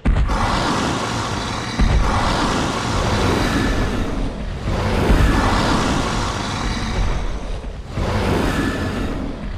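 Dinosaur sound effects for a walking Tyrannosaurus rex: a loud, deep rumbling roar that swells and fades in three long waves. Heavy stomping thuds land about two seconds in, about five seconds in and again near the end.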